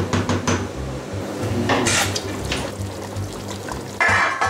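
A wooden spoon stirring thick caldo verde (potato-and-kale soup) in a steel pot: liquid sloshing, with a few quick knocks in the first half second and another splashy stir about two seconds in. A sudden louder rush of noise comes in near the end, over steady background music.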